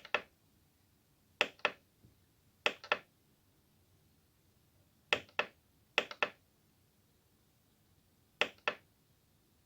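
Front-panel buttons of a Korg N264 keyboard being pressed while parameters are edited: six short double clicks, spaced unevenly, with no notes played.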